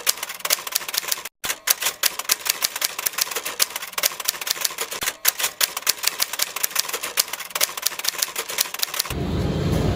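Typewriter sound effect: rapid, even keystroke clicks, about six a second, with a short break about a second in, stopping about nine seconds in.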